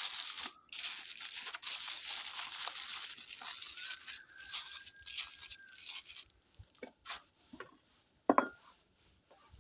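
Aluminium foil crinkling as hands fold and crimp its edges, stopping about six seconds in. A few light clicks follow, then one sharp knock near the end.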